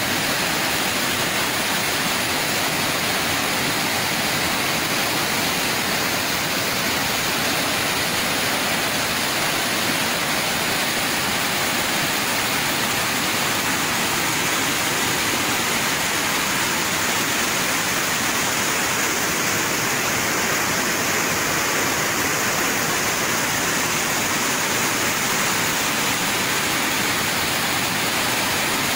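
Fast muddy floodwater rushing in a steady, unbroken wash of noise, with no let-up.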